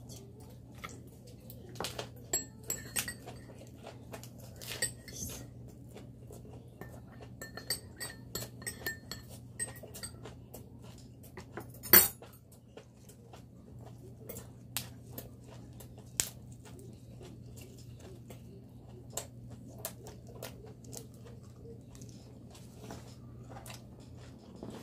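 Scattered small clinks and taps of dishes and cutlery during a meal, with one much louder sharp clink about halfway through, over a steady low hum.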